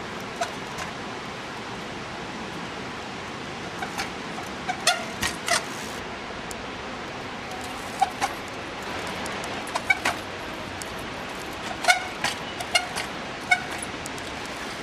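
Trials bike hopping across logs: clusters of short knocks as the tyres land on the wood, some with a brief high squeak from the brakes, over a steady hiss.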